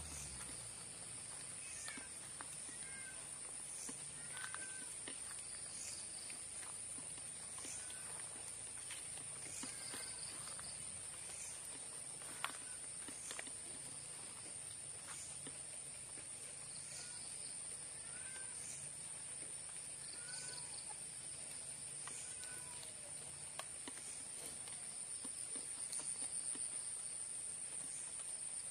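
Night chorus of frogs and insects: a steady high-pitched insect trill runs throughout, with short, downward-gliding frog chirps every second or two. A single sharp click comes about twelve seconds in.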